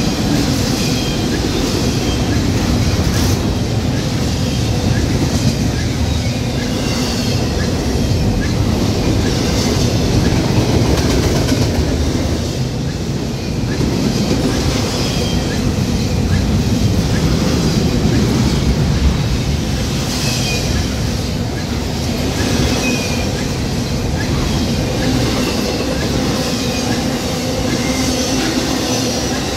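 Double-stack intermodal freight cars rolling past: a steady rumble of steel wheels on rail, with clickety-clack over rail joints and short high-pitched wheel squeals that come and go.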